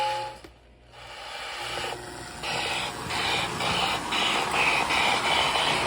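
Lionel 8206 steam locomotive's Sound of Steam unit chuffing as the toy train gets moving, over the running noise of its motor. The hissing chuffs come in about two seconds in and settle to roughly two a second, still a little quiet. A steady tone cuts off right at the start.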